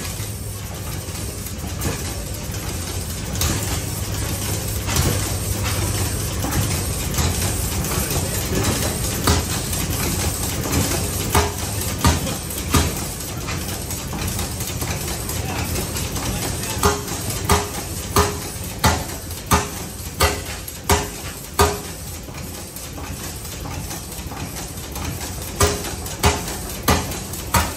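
The 1893 Oriental gas engine, a large two-cylinder sternwheeler engine, running with sharp firing pops over a steady low drone. The pops come irregularly at first, then in runs of about three every two seconds.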